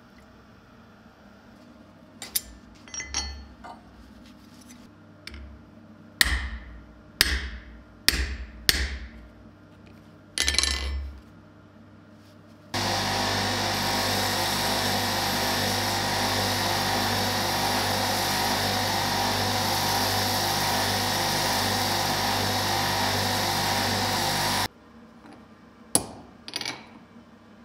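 Hot steel hissing in a series of short sizzles as it is dipped into a water barrel, then a belt grinder grinding the steel for about twelve seconds. The grinding stops suddenly, followed by two sharp hammer strikes on the anvil near the end.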